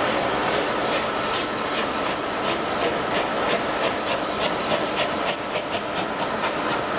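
Steam locomotive working, its exhaust beats coming about three a second from just over a second in and dying away near the end, over a steady hiss.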